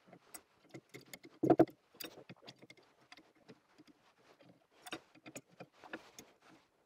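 Bent steel rods clicking and clinking against each other and against a metal jig in a vise as they are slotted in one by one, in irregular light taps. A louder clank comes about one and a half seconds in.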